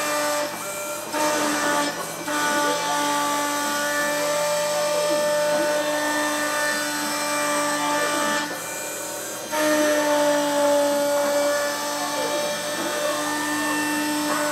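CNC engraving machine cutting labels into an engraving-laminate plate: a steady motor whine over a hiss of cutting, with stepper-motor tones gliding up and down as the head moves between strokes. The tones drop out briefly a few times, longest about eight and a half seconds in.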